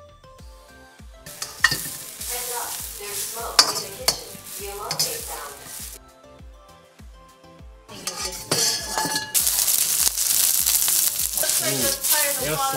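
Food sizzling in a hot wok while a metal spatula stirs and tosses it, with clicks and scrapes. The sizzling comes in two stretches and is loudest over the last few seconds. Background music with a steady beat plays underneath.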